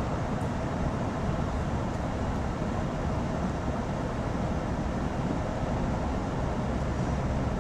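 Steady road and engine noise inside the cab of a moving pickup truck.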